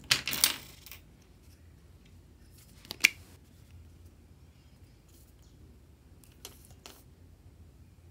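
Small plastic clicks and taps of a squeeze bottle of fabric paint being handled over a plastic tray: a cluster of clicks at the start, one sharp click about three seconds in, then two faint ticks near the end.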